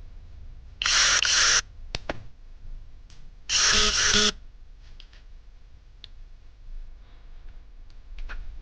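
Handheld electric power tool switched on twice in short test bursts of about a second each, its brushed motor running up and cutting off sharply, with a couple of light clicks between.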